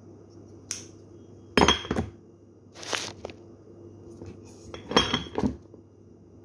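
Kitchenware being handled: dishes and utensils knocking and clinking, a light click followed by three short spells of clatter.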